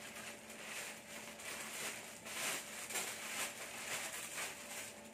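Plastic courier pouch being torn open and handled, its plastic rustling and crackling in irregular bursts, busiest a little past the middle.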